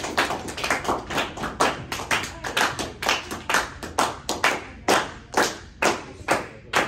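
Hands clapping: quick, uneven claps at first, settling after a few seconds into a steady beat of about two claps a second.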